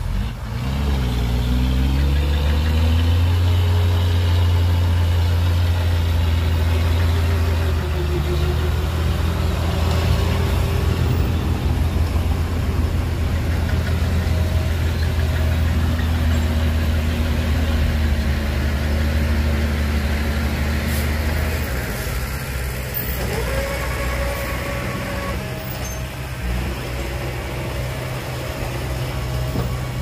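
Heavy diesel engine revving up, then running hard and steady at high revs, easing back after about twenty seconds.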